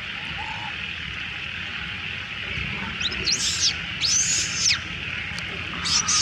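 Young monkey giving shrill crying squeals, three short rising-and-falling cries in the second half, over a steady high hiss.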